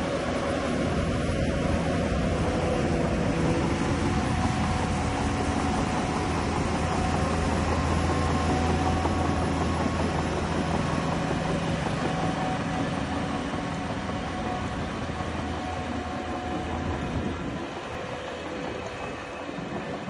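Heavy diesel earthmoving machinery running steadily, a low engine hum under a constant mechanical noise, easing off slightly near the end.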